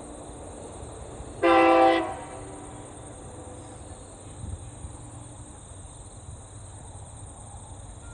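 Diesel locomotive horn: one short, loud blast about a second and a half in, fading briefly after it stops. It comes from the approaching train led by TasRail's TR class locomotive TR08, sounding its warning for a level crossing.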